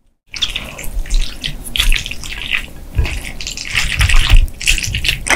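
Chopsticks stirring and lifting saucy mala xiang guo, with glass noodles and tofu skin, on a plate. A run of irregular wet, sticky sounds starts about a third of a second in.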